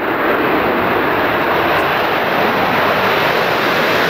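Concorde's four Rolls-Royce Olympus turbojets at full takeoff power with reheat lit: loud, steady jet noise as the aircraft accelerates down the runway.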